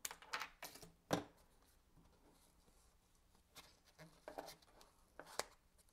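Small craft scissors snipping thread: a few sharp clicks in the first second, the loudest about a second in. Then a few faint taps from the card being handled.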